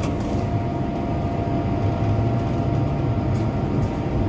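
Inside a Bombardier Flexity Outlook streetcar under way: a steady low rumble of the car running on its rails, with a faint steady whine above it.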